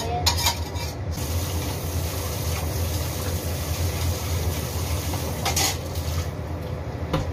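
Vegetables with carrot sizzling in a hot pan, a steady hiss that starts about a second in and fades about six seconds in. There are a few knocks of a utensil against the pan and a steady low hum underneath.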